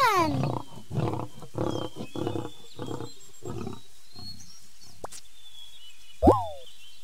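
Lion roaring: one loud call with falling pitch, then a run of about seven shorter grunts roughly half a second apart that grow fainter. About six seconds in comes one sudden loud cry, falling in pitch.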